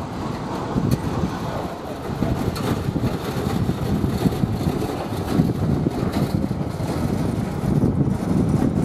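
Airbus A320 twin turbofan engines heard during landing and rollout: a continuous, gusty jet engine noise with wind on the microphone, growing louder over the last couple of seconds.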